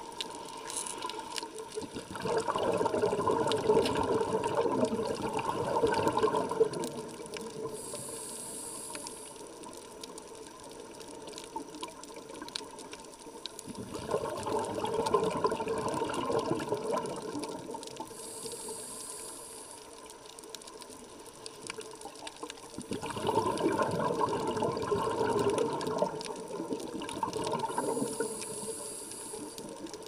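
Scuba diver breathing through a regulator underwater: three long exhalations heard as bursts of bubbling, each followed by a short hissing inhalation, in a cycle of about ten seconds.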